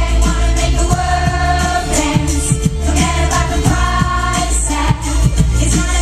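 Live pop song: a woman singing into a microphone over a loud backing track with a steady beat and heavy bass.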